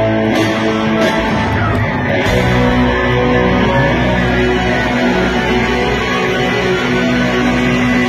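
Live rock band playing at concert volume: an electric guitar takes the lead over drums.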